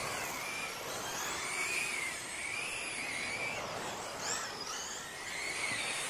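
Electric radio-controlled short-course trucks racing on dirt: the whine of their motors and gears rising and falling in pitch with the throttle as they lap.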